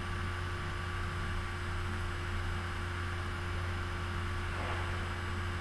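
Steady electrical hum with a constant hiss and a faint steady tone from an open microphone.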